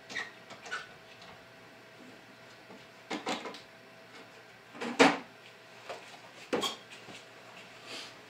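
Handling of a cordless drill's plastic battery charger and 20V lithium-ion battery pack: a scattered series of short clicks and knocks, the loudest about five seconds in, over a faint steady hum.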